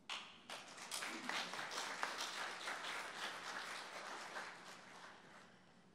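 Audience applauding: clapping starts at once, fills in to a steady patter, then thins and dies away near the end.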